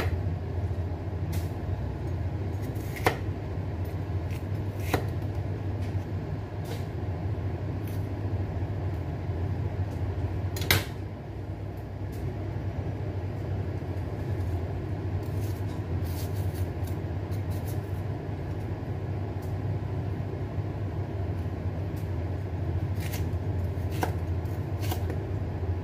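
Chef's knife slicing a green bell pepper on a wooden cutting board: scattered sharp taps of the blade on the board, with a cluster of cuts near the end. A louder single knock comes a little before halfway. A steady low hum runs underneath.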